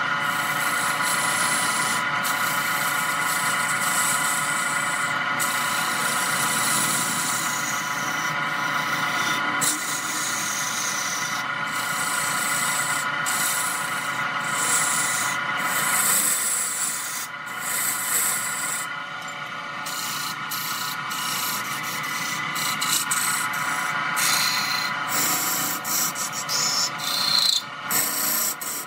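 Wood lathe spinning a large wooden blank while a hand-held turning tool cuts it, a steady scraping hiss of shavings over a steady hum. The cut breaks off for a moment again and again, more often in the second half.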